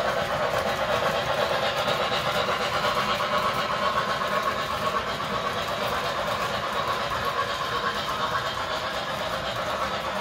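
O gauge model trains running on metal track: a steady rolling rumble of wheels on the rails.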